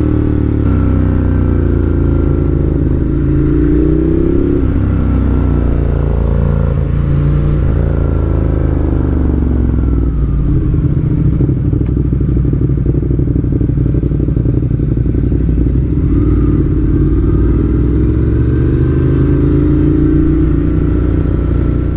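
Ducati Monster 1200 S's L-twin engine heard from on board while riding, revving up and easing off again and again through a run of sharp bends.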